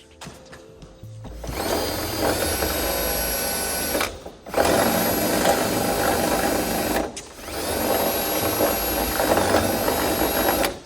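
Power drill run in three bursts of a few seconds each, its motor whining up to speed at the start of each, drilling into a carbon fiber hood.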